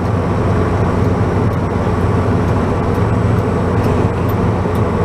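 An engine running steadily at an even speed, a constant low hum with no change in pitch.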